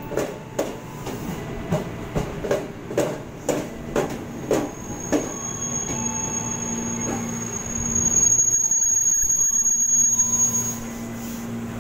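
JR 205 series electric commuter train running past, its wheels knocking over a rail joint in a steady beat about twice a second for the first five seconds. After that comes a steady hum with a thin high whine, with a louder rush of noise about eight seconds in.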